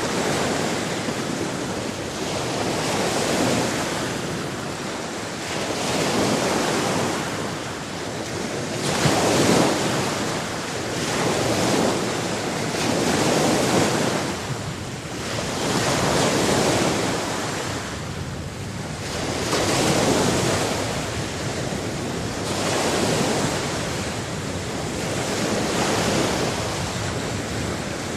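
Sea waves breaking and washing in a continuous surf, swelling and fading every three to four seconds.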